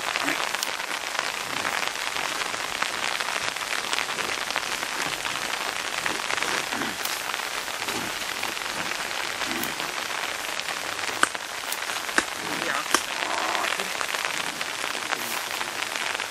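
Steady rain falling on leaves and ground, an even hiss, with a few sharp ticks about two-thirds of the way through.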